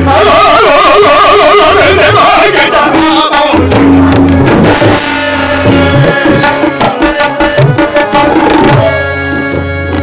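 Live South Asian ensemble: a singer's wavering voice over tabla and harmonium. The voice drops out after about three seconds, leaving tabla strokes and harmonium, with steady held notes near the end.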